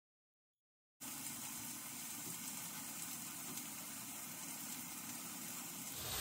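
A second of dead silence, then chicken sizzling steadily as it cooks.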